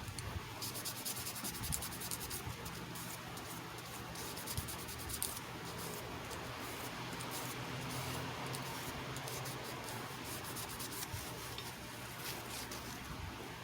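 Light, irregular scratching and rubbing on a small hard surface, with a steady low electrical hum underneath.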